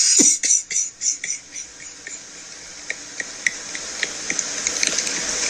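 Breathy, wheezing laughter: a quick run of airy exhales that dies away after about a second and a half into soft hissing with faint clicks.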